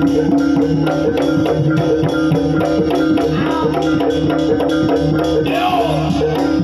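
Live Javanese gamelan ensemble playing dance accompaniment for reog/jaranan: kendang drum keeping a fast, even beat over sustained metallic gong-chime tones.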